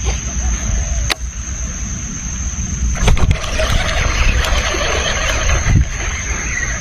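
Steady low rumble and water noise on a fishing boat, with a constant high-pitched whine and two sharp clicks, one about a second in and one about three seconds in.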